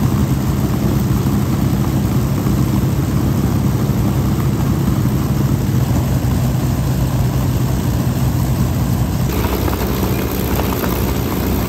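Piston aircraft engine running at a steady speed, a loud even drone with a low hum. About nine seconds in it turns rougher and brighter.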